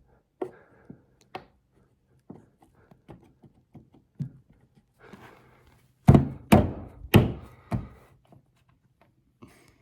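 Wooden shelf board being handled on its hidden wall bracket: scattered light taps and knocks, then about four loud thunks in quick succession around six seconds in as the board is knocked onto and against the mount.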